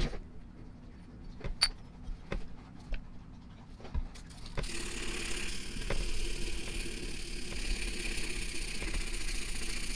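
A few light clicks and taps of small steel parts handled on a towel. About halfway in, a steady hiss with a faint low hum starts and runs on.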